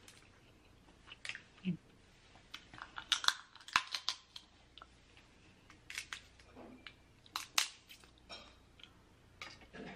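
Close-miked eating of king crab: chewing with wet mouth sounds, and scattered sharp crackles and clicks as the crab meat and shell are handled.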